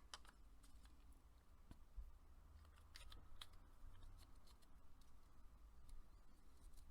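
Near silence: room tone with faint, scattered small clicks and taps of resin figure parts being handled and fitted together.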